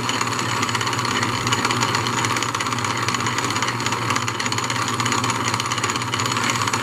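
1920s Wade bench lathe running steadily under power from an old electric motor through a pulley drive, with a constant low hum and whir as the chuck spins.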